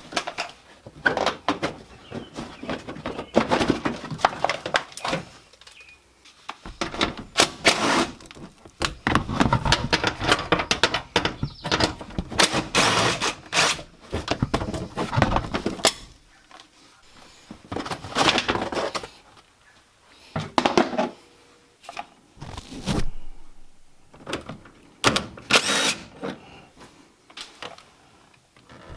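Hand-tool work on a car's front end: irregular clicks, clatters and thunks of tools and parts being handled. They come in bursts separated by short quiet gaps.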